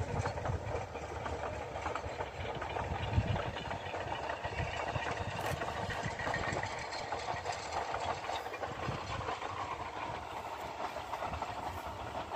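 Talyllyn Railway No 7 'Tom Rolt', a narrow-gauge steam locomotive, hauling its train of carriages along the valley at a distance: a steady running noise of locomotive and wheels on the track, with irregular low rumbles.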